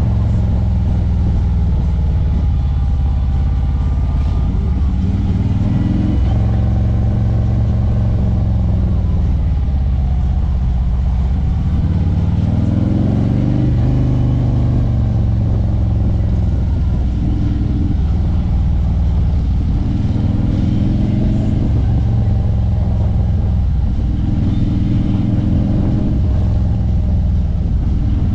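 Harley-Davidson Street Glide's V-twin engine running under way, its pitch climbing and settling back several times as the throttle is opened and eased.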